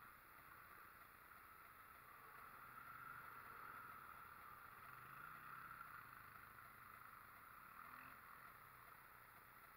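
Faint ATV engine running in the distance, its pitch drifting gently up and down.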